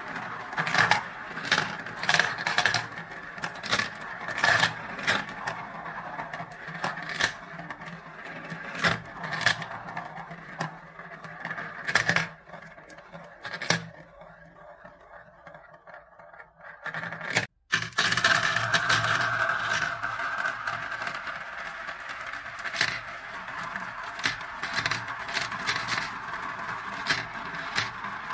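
Marbles rolling and spiralling around the clear plastic funnel bowls of a marble run, with frequent sharp clicks as they knock together and drop into the plastic tubes. The clicking thins out for a few seconds about half way, the sound cuts out for a moment about two-thirds through, and then steadier rolling resumes.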